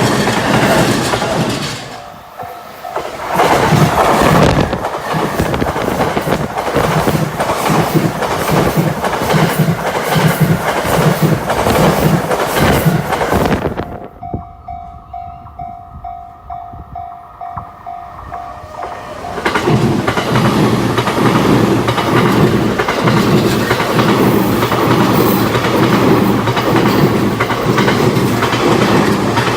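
Chuo Line trains passing close by at a level crossing, with steel wheels clacking over the rail joints. After about fourteen seconds the train noise drops away, and for about five seconds the crossing's alarm bell is heard alone, ringing about twice a second on one tone. Then a second train passes loudly.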